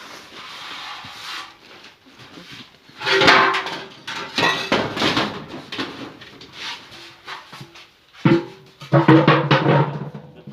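Music with drums and percussion, coming in loud, uneven bursts.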